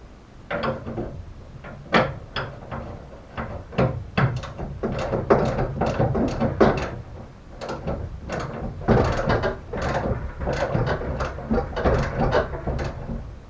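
Hand ratchet wrench clicking in irregular back-and-forth strokes, starting about half a second in.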